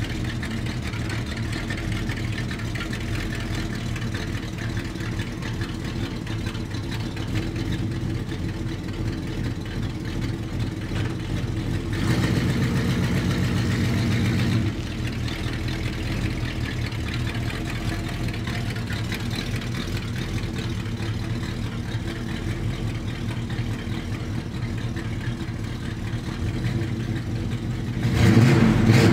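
A 1978 Chevy farm truck's V8 engine idling steadily as it warms up after a cold start. It is blipped louder for a couple of seconds about twelve seconds in, and again near the end.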